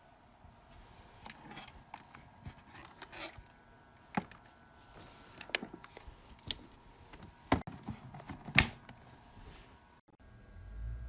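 Irregular clicks, taps and knocks, as of small objects being handled, with the two loudest knocks near the end.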